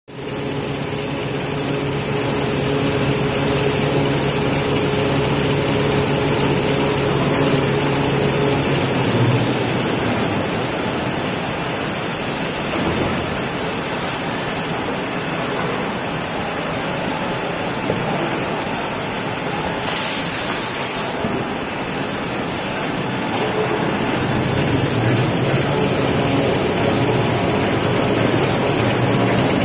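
Toilet paper and kitchen towel converting line running: a steady mechanical whir and hum of motors and rollers. A high-pitched whine glides down about a third of the way in and glides back up near the end, and a short hiss comes about two-thirds of the way through.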